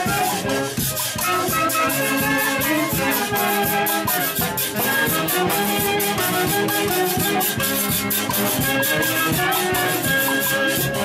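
Live Andean orquesta típica playing: saxophones and clarinets carrying the melody over a harp, with congas, timbales and a metal shaker keeping a steady, quick beat.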